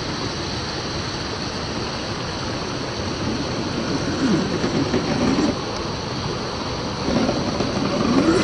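Steady rushing of a stream and small cascades, with the whine of an RC crawler's brushed 550 motor rising and falling as it climbs rock, about four seconds in and again near the end.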